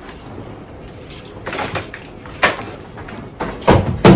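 Things being handled and set down: a few scattered knocks and rustles, the two loudest knocks near the end.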